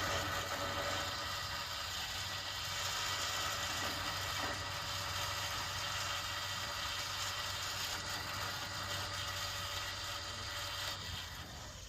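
Winch motor running with a steady whine as it spools the repaired cable back onto the drum. It stops near the end.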